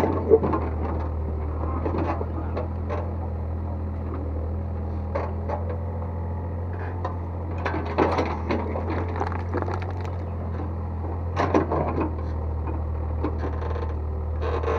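Excavator engine running at a steady pitch, with clanks and scraping from the bucket and dirt at intervals, loudest about eight and eleven and a half seconds in.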